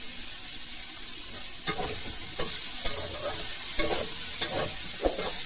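Sliced green banana and potato frying in oil in a kadai, sizzling steadily. From about two seconds in, a flat metal spatula scrapes and knocks against the pan in repeated strokes as the pieces are stirred with the freshly added turmeric.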